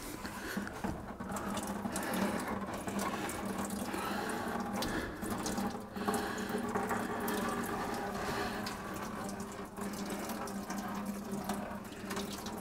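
Residual coolant trickling steadily out of the lower hose outlet of an old, leaky radiator as it drains.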